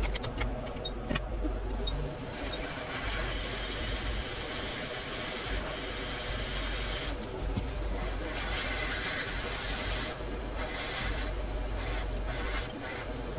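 Steady hiss of blowing air from a hot air rework station heating a chip on the phone's logic board, over a low constant hum, with a few light clicks in the first couple of seconds.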